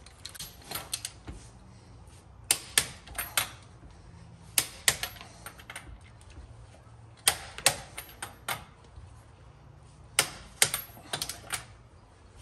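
A click-type torque wrench tightening a wheel's lug nuts to 100 lb-ft. There are five clusters of sharp metallic clicks about two to three seconds apart, one for each nut as the wrench is ratcheted on and clicks over at the set torque.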